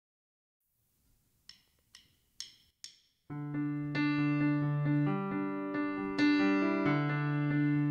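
Four sharp clicks about half a second apart, a drumstick count-in, then a Yamaha S90 ES stage keyboard comes in a little past three seconds, playing sustained piano chords over a low held bass note.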